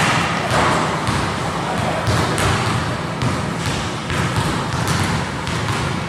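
Basketballs bouncing on an indoor gym court during a shooting drill: a run of irregular sharp knocks.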